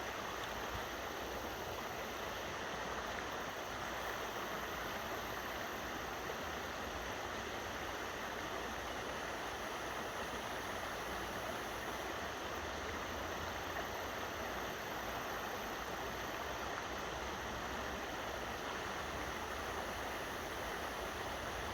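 Steady rush of flowing river water, an even hiss with a low rumble underneath that does not change.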